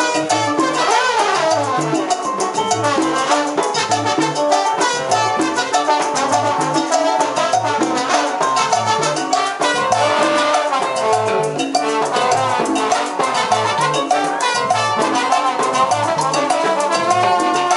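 Live salsa band playing: trombone and trumpet lines over congas and timbales, with a repeating bass figure underneath.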